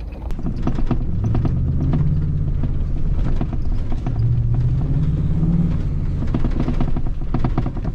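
Ford F-150 pickup heard from inside the cab while driving on an ice road: the engine pulls up in pitch about a second in, eases off, and pulls up again around the middle, with a steady run of knocks and rattles from the truck riding over the bumpy, washboarded ice.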